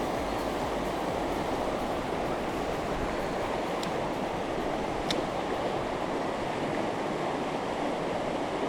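Mountain stream rushing steadily over rocks, with a couple of faint ticks.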